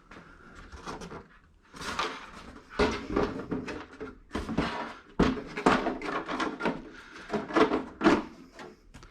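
Packaging being rummaged through and handled in an unboxing: a run of irregular rustles and knocks, the sharpest about three and five seconds in.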